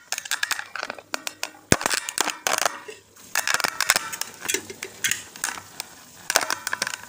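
Pan of milkfish simmering in vinegar and cooking oil on a gas burner, crackling and popping in dense, irregular bursts.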